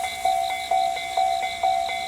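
Japanese railway level-crossing warning bell ringing, its electronic clang repeating evenly about twice a second, which signals that a train is approaching or passing.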